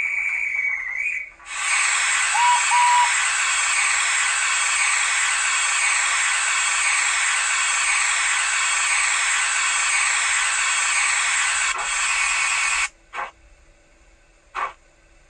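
Steam-locomotive sounds from a Hornby M7 model: a short whistle, then a loud, steady hiss of steam lasting about eleven seconds that cuts off suddenly. A few slow, sharp chuffs follow, spaced more than a second apart.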